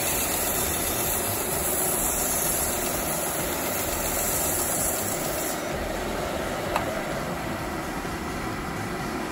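Vertical belt sander running with dust extraction on, the end grain of a small wooden block pressed against the moving belt: a steady hiss of sanding over the machine's hum. A little past halfway the hiss stops as the wood comes off the belt, leaving the sander and extractor running, with one light click near the end.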